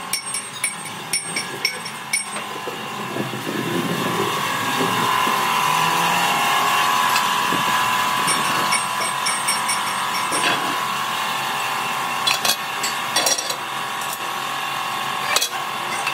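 Metalworking machinery running steadily with a hum that grows stronger about four seconds in, and scattered sharp metallic clicks and knocks.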